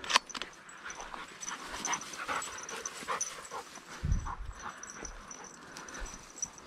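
German shorthaired pointer panting in short quick breaths as it hunts through cover. A sharp click comes just after the start and a low thump about four seconds in.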